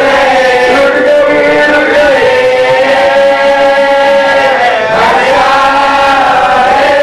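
Marsiya recitation: a man chanting an Urdu elegy in long, drawn-out notes with slow slides in pitch, one dipping and rising again about five seconds in.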